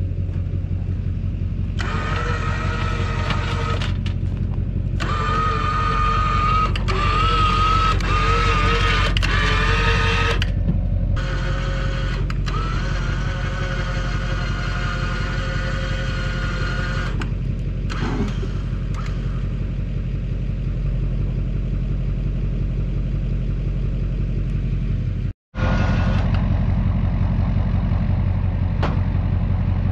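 Electric winch whining as it pulls a car up onto a trailer, running in spurts of a few seconds with short stops, over the steady low hum of an idling truck engine.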